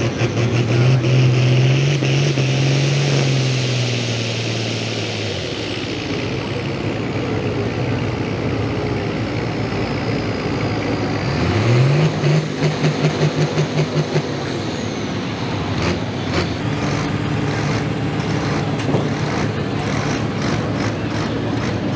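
Turbocharged pulling tractor's diesel engine at full throttle with a high turbo whistle, dropping off about five seconds in. About twelve seconds in, the engine revs up again and pulses rapidly, about five times a second, for a couple of seconds while the turbo whistle winds down. It then settles to a lower, steady run.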